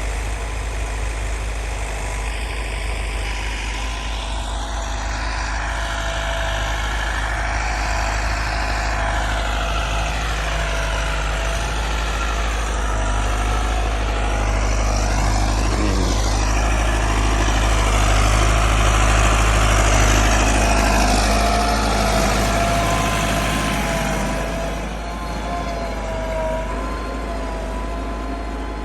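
Massey Ferguson 385 tractor's diesel engine running steadily while ploughing, growing louder about two-thirds of the way through and then easing off near the end.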